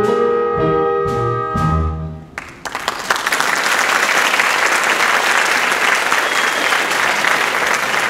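The last chords of a song's musical accompaniment end about two seconds in, and an audience breaks into applause that keeps going.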